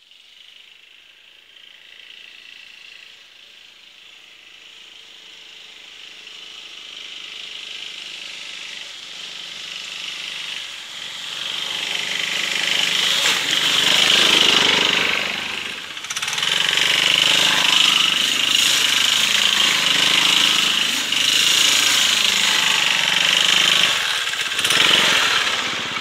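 Small petrol engine of an off-road motor scooter, approaching at speed. It grows louder over the first dozen seconds and is loudest as it passes close about 14 seconds in. It stays loud, with a short dip just after passing, until near the end.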